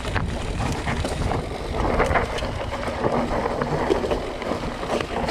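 Mountain bike riding over a rough dirt singletrack: a steady rumble of knobby tyres on dirt and wind on the microphone, with small knocks and rattles from the bike over bumps.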